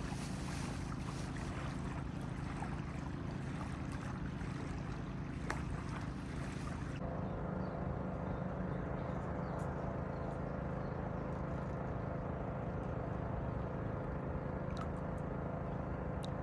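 Steady low motor hum over small ripples lapping at the river's edge.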